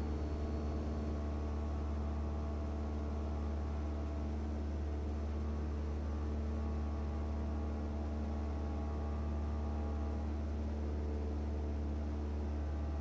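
Single-engine light aircraft's piston engine and propeller droning steadily in the cockpit in flight.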